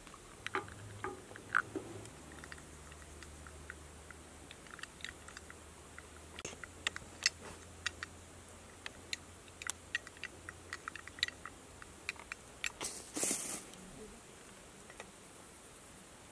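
Light clicks and taps of a small glass saffron steamer pot and its clip-on plastic handle being handled, scattered irregularly, with a short scraping rush about two-thirds of the way through.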